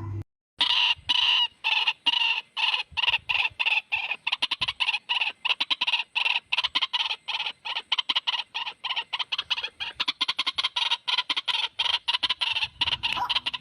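White-breasted waterhen calling: a long run of short, harsh notes that starts about half a second in and quickens from about two a second to several a second.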